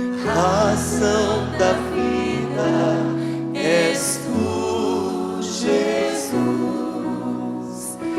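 Gospel worship song: a singer's voice over instrumental accompaniment, with held bass notes that change every second or two.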